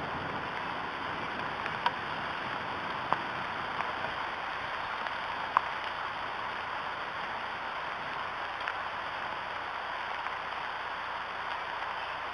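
Steady rain falling on the nest and surrounding foliage, an even hiss, with a few sharp drip ticks, the loudest about five and a half seconds in.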